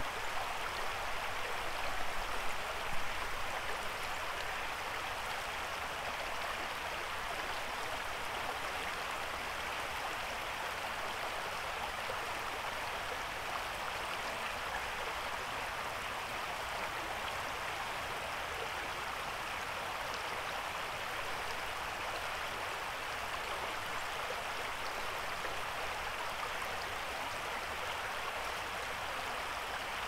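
Shallow, rocky creek running steadily over stones: a continuous, even rush of water.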